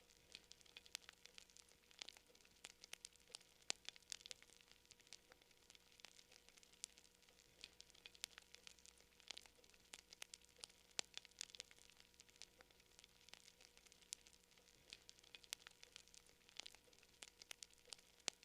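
Wood campfire crackling, faint and steady, with irregular small snaps and a few sharper pops.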